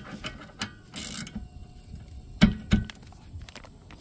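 Ratchet and 14 mm socket loosening a rear brake caliper bolt: the pawl clicks as it works, with two loud knocks about two and a half seconds in.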